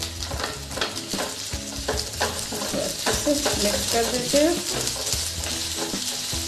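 Spatula stirring and scraping mashed boiled potatoes, paneer and onions around a hot oiled kadhai, with a steady light sizzle from the oil. The scrapes come at an irregular pace.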